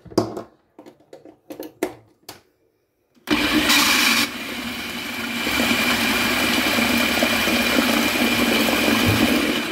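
Electric food processor motor running for about six seconds, chopping peeled tomatoes coarsely. It starts about three seconds in, after a few light knocks of the lid and pusher being handled, and is loudest in its first second, then dips and builds back up.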